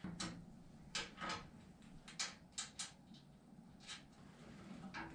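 Scattered light metallic clicks and taps of bolts and washers against the steel tubing of a tractor-cab frame as the bolts are started by hand. The taps are irregular and separate, about nine of them.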